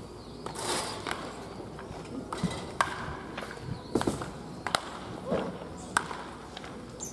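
Baseball bats hitting tossed balls in toss-batting practice: a series of sharp cracks, several of them a second or so apart.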